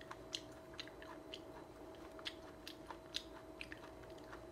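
Mouth sounds of chewing a raw coconut worm (palm weevil larva) with its tough, chewy skin: soft, irregular wet clicks and smacks, a few a second.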